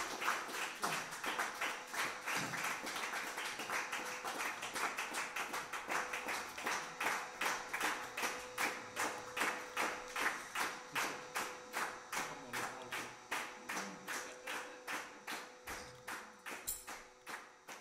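Audience applause that settles into rhythmic clapping in unison, about three claps a second, slowly fading away.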